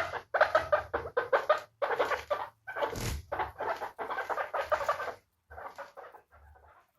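Guinea pigs squeaking in a quick run of short calls, growing fainter near the end.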